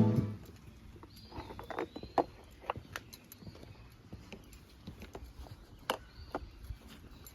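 Scattered light clicks and knocks, about a dozen irregular strikes of varied loudness, typical of tools and parts being handled during HVAC installation work. Montage music cuts off at the very start, and a faint whistle-like glide rises and falls about a second in.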